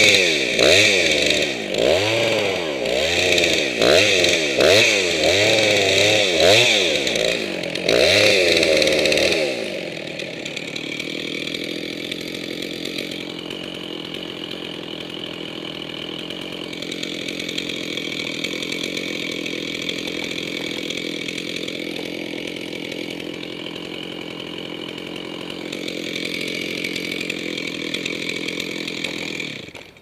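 Gas chainsaw cutting through an elm trunk, its engine pitch rising and falling about once a second. From about a third of the way in it turns quieter and steadier until it cuts off at the end.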